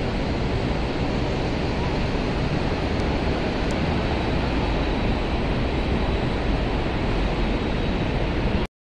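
Wind buffeting the microphone, a steady deep rushing noise, with city street traffic beneath it.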